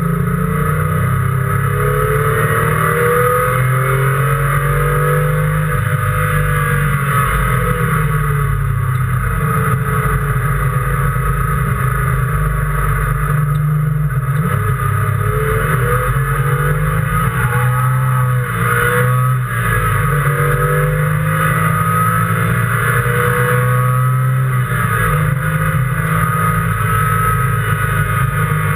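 Race car engine running hard on track, heard from on board, its pitch climbing and dropping again and again as it accelerates, shifts and slows for corners.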